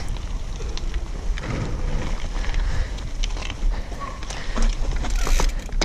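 Mountain bikes rolling over a packed dirt trail: a steady rumble of wind on the microphone with scattered clicks and rattles from the tyres and bikes.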